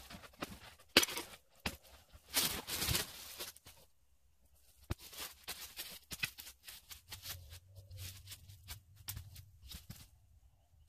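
Dry sticks snapping and dead leaves and brush rustling as ground is cleared by hand for a hammock site. Several sharp snaps, with a longer rustle about two and a half seconds in, then lighter scattered crackles.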